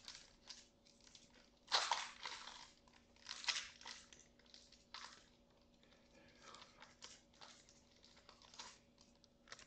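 Foil wrappers of small Pokémon Trick or Trade booster packs being torn open and crinkled, in several short, irregular bursts.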